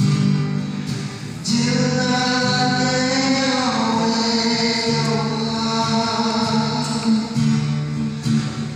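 A man singing a slow song into a microphone, amplified through a PA. He holds long notes, with a slide in pitch about three and a half seconds in.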